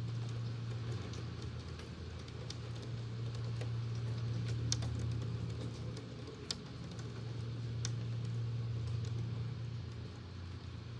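Electric fan running with a steady low hum over the hiss of falling rain, with scattered sharp ticks of drops striking a hard surface.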